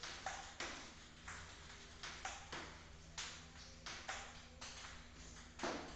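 Table tennis balls clicking sharply off the table and the rubber-faced bats in quick succession, about two to three clicks a second, as balls are fed and hit back.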